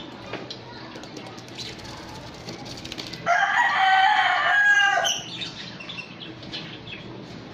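A rooster crows once, a loud call lasting under two seconds, starting about three seconds in. Small cage birds chirp faintly throughout.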